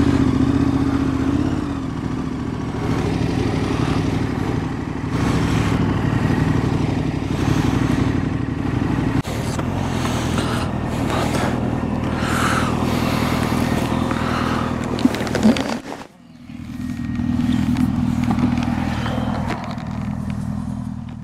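Motorcycle engine running steadily on the move. It dips sharply for a moment about three-quarters of the way through, then picks up again.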